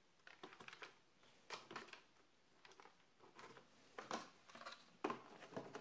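Faint clicks and crinkles of a thin clear plastic packaging insert being handled, with a few sharper ticks scattered through.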